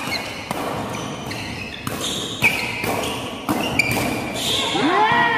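Badminton rally: rackets hitting the shuttlecock back and forth, sharp hits about half a second apart, with short squeaks of shoes on the court floor. Near the end a voice shouts with a rising, then falling pitch.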